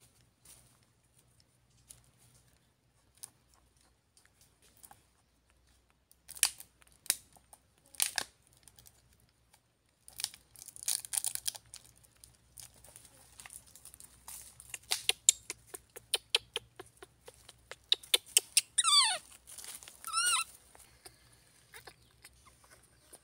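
Scattered rustling and crinkling, dense for several seconds in the middle, then near the end two squeals from a baby monkey, each falling steeply in pitch, the second shorter.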